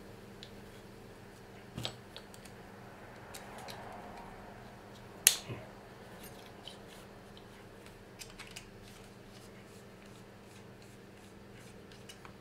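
Scattered small clicks and taps as a hex key works bolts and nuts on a 3D-printed plastic part, with one sharper click about five seconds in.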